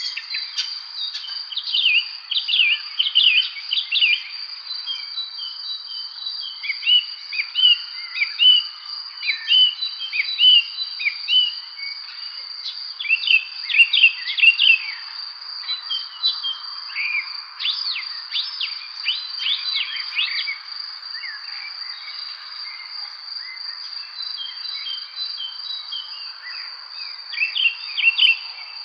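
Several songbirds chirping and singing in quick, rapid-fire phrases over a steady, unbroken high insect trill. The chirping comes in bunches, thins out for a few seconds past the middle and picks up again near the end.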